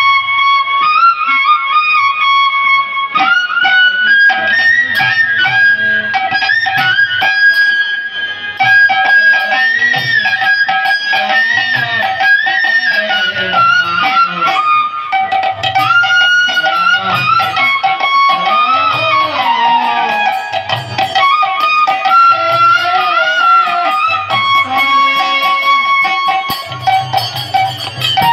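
Live Bengali harinam sankirtan instrumental: a solo melody instrument plays long, wavering notes with slides over a steady beat from barrel-shaped khol drums.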